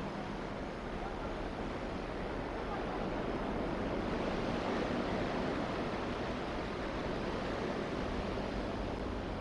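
Steady wash of surf breaking on a sandy beach, with a faint low hum underneath that grows a little near the end.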